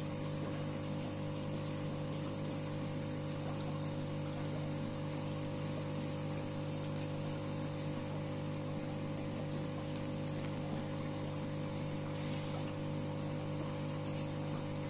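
Steady hum of an aquarium pump, with bubbling water from the air stones over it.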